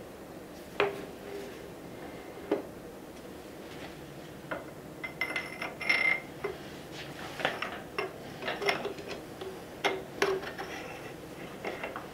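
Scattered metallic clinks and knocks, some briefly ringing, as a 2015 Ducati Scrambler's front wheel is fitted between the fork legs and its axle is lined up through the hub. The knocks are sparse at first and come more often in the second half.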